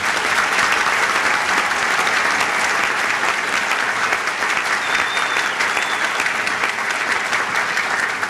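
A large audience applauding, steady and sustained, easing off slightly near the end.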